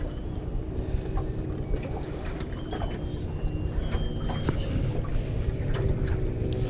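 Steady low rumble of wind and water lapping around a small aluminium boat, with scattered light clicks and knocks from the gear aboard.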